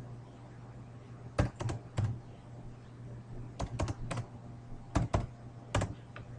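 Computer keyboard typing: short clusters of a few sharp keystrokes with pauses between, as numbers are keyed in and entered, over a faint steady low hum.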